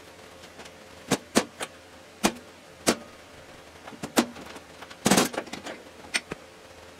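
Irregular sharp metal clicks and clinks from an Oregon PowerSharp saw chain being worked in a steel bench vise as its links are pried apart, with a short rattle about five seconds in.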